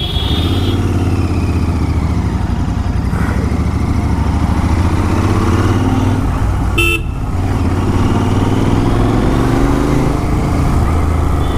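Royal Enfield Continental GT 650's 648 cc parallel-twin running steadily through a Gursewak Big Shot aftermarket exhaust, with a deep low exhaust note. A vehicle horn beeps briefly near the start and again about seven seconds in.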